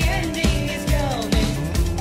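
Nightcore song (sped-up, pitched-up pop-rock) with high singing over a steady drum beat.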